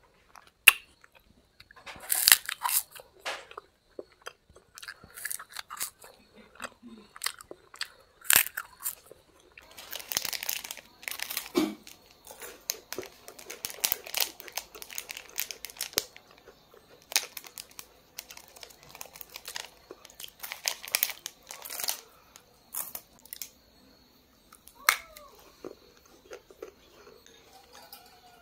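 Close-miked eating sounds: crunchy bites and chewing, with a plastic chocolate-bar wrapper crinkling and tearing midway.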